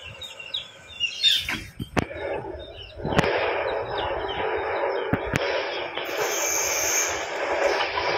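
Outdoor ambience of birds chirping and twittering, thickening into a dense chorus from about three seconds in, with a few sharp clicks.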